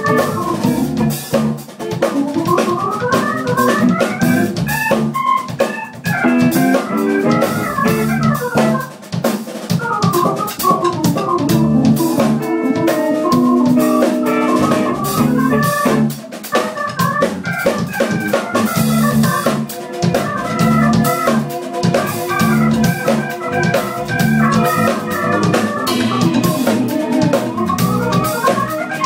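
Live instrumental jazz band playing: drum kit, bass guitar, electric guitar, congas and a keyboard with an organ sound, with fast rising and falling melodic runs over a steady drum groove.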